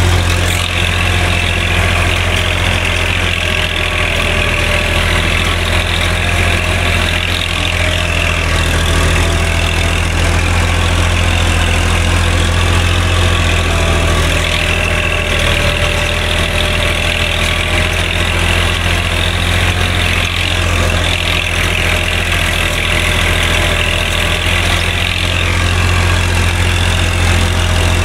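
Massey Ferguson tractor's diesel engine running steadily under load while it pulls an MP (mouldboard) plough through the soil.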